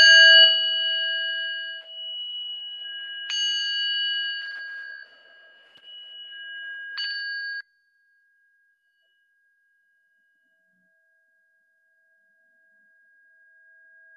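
Small Tibetan singing bowl struck three times, about three and a half seconds apart, each strike ringing on in several high, clear tones. This is the signal that ends the rest. The sound falls away suddenly after the third strike and one faint tone lingers.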